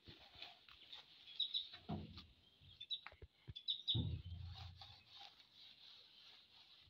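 Small birds chirping faintly in short, scattered calls, over quiet rubbing of a damp cloth on a window frame. There are two dull thumps, about two and four seconds in.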